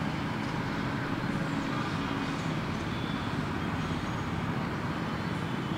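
Steady, unbroken hum of road traffic.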